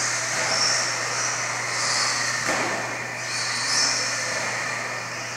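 Radio-controlled cars running laps on a dirt track: high motor whines swelling and fading as the cars accelerate and brake, with a single knock about two and a half seconds in, over a steady low hum.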